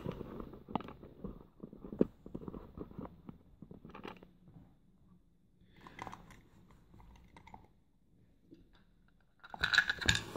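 Small metal clicks, knocks and scrapes as a Yale five-pin rim cylinder is handled and taken apart, its rear retaining clip being worked off. The clicks come thick and fast at first and then thin out, with a louder burst near the end.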